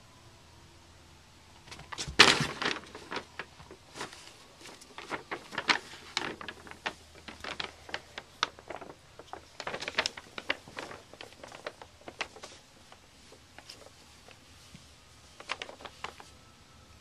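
Brown paper bag crinkling and rustling in bursts as a cat scrabbles into it and paws at a toy inside. The loudest crackle comes about two seconds in, then clusters go on until a quieter spell, with one last burst near the end.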